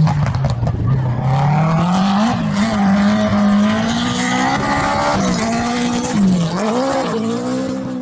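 BMW E30 rally car driven hard on a loose gravel stage: the engine revs high and its pitch rises and dips several times as the driver shifts and lifts through the corner, with tyres scrabbling over the gravel and a few sharp ticks of flung stones near the start.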